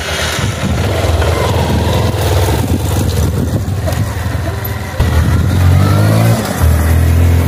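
Honda Bros 160 motorcycle's single-cylinder four-stroke engine running as the bike rides off, getting louder about five seconds in and revving up twice, its pitch rising each time.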